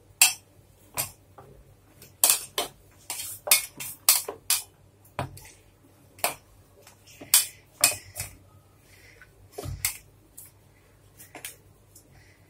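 Hand-kneading stiff jaggery-and-wheat-flour dough in a stainless steel bowl: irregular clinks and knocks of hand against the metal bowl, with a couple of dull thumps as the dough is pressed down.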